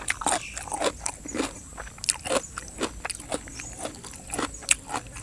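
A person chewing and biting into chicken feet in spicy fermented-fish-sauce salad: an irregular run of wet clicks and crunches, several a second.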